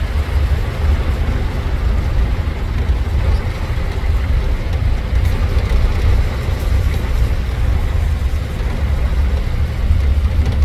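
Steady rumble of a moving tuk-tuk: engine and road noise, heaviest in the low end.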